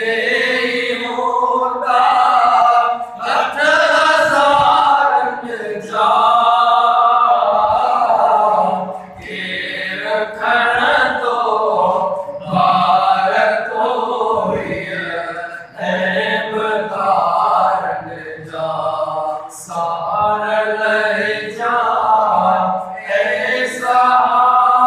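A man's solo voice singing a naat, an unaccompanied devotional poem in praise of the Prophet, into a microphone. It comes in melodic phrases of a few seconds with short breaks for breath between them.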